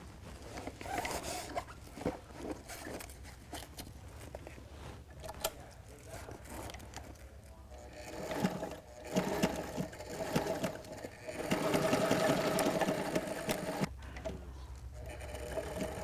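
Sailrite Ultrafeed LSZ-1 walking-foot sewing machine stitching a zigzag seam through Velcro and Dacron sailcloth. It is quieter with scattered clicks at first, then runs steadily from about halfway. It stops abruptly near the end and starts again.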